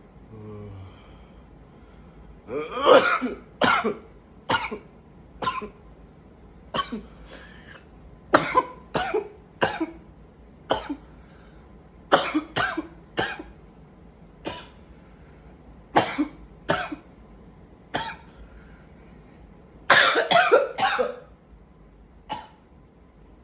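A man coughing in repeated fits: about twenty short, sharp coughs in clusters, ending with a longer run of several coughs close together near the end.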